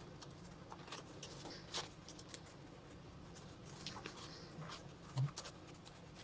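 Nylon fabric and webbing straps of a plate carrier vest rustling and scraping as a pouch is fitted to them by hand, with scattered small clicks and a soft low thump about five seconds in.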